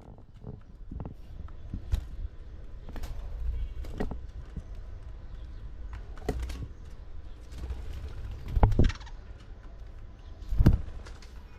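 Small pet parrots calling, over a low rumble and a series of knocks and thumps. The two loudest thumps come in the second half.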